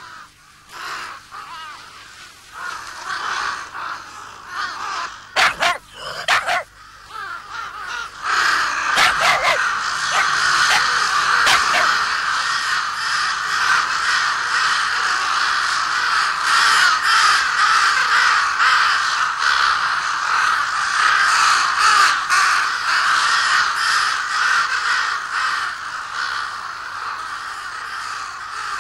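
A large flock of crows cawing: scattered calls at first, then from about eight seconds in a dense, continuous din of many birds calling at once.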